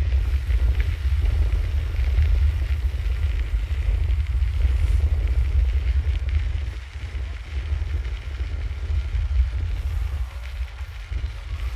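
Wind buffeting the microphone of a rider on a moving bicycle: a heavy, fluttering low rumble with a fainter hiss of tyres and air above it, easing a little about seven seconds in.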